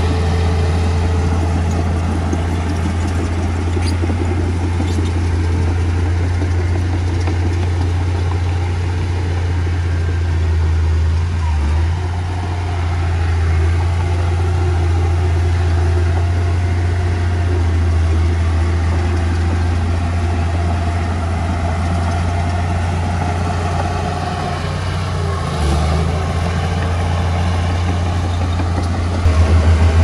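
Heavy diesel engine of earthmoving machinery running steadily with a deep hum. It briefly drops a little twice in the middle and swells into a throbbing pulse near the end.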